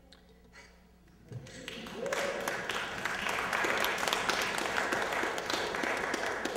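Audience applause breaking out about a second and a half in and going on steadily, many hands clapping at once.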